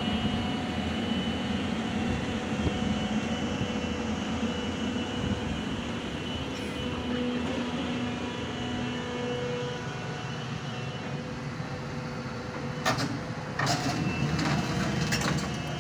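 A heavy-equipment diesel engine running steadily, with several sharp metallic clanks near the end.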